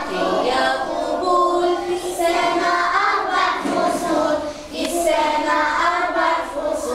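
A class of young children singing a song together in unison.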